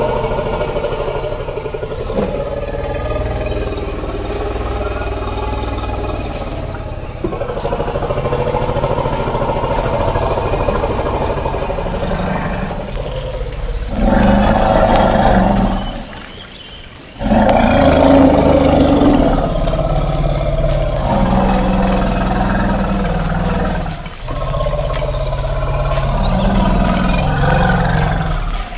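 Elephant calls. First a steady low drone, then, after a change of recording, a run of loud, long pitched calls a few seconds each, broken by short pauses.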